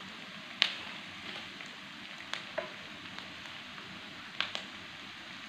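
Whole spices and aromatics frying in hot oil in a wok, a steady sizzle as they are sautéed until they turn yellowish. A few sharp clicks cut through it, the loudest about half a second in.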